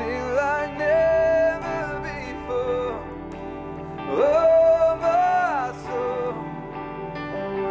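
Gospel worship song sung by a worship team with a live band. A lead line slides up into a long held note about half a second in, and again at about four seconds.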